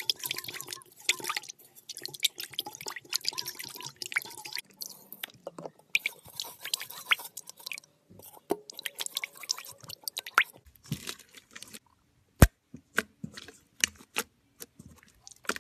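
Clear glitter slime squeezed, poked and folded by hand, giving a dense run of sticky clicks and small pops. The clicks thin out to scattered single pops over the last few seconds.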